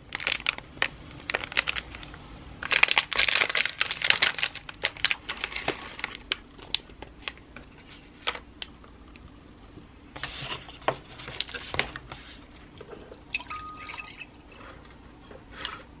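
Clear plastic packaging crinkling and crackling as a small cake is unwrapped by hand from its plastic bag and tray, in clusters of rustles, heaviest in the first few seconds and again about ten seconds in. Near the end, milk is poured from a carton into a glass.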